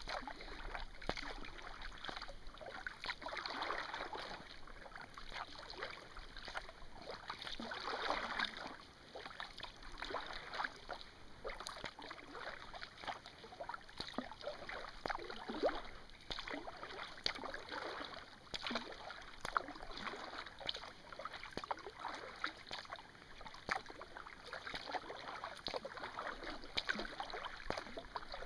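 Kayak paddle strokes in calm water: repeated splashes of the blades, with water dripping and trickling off them between strokes.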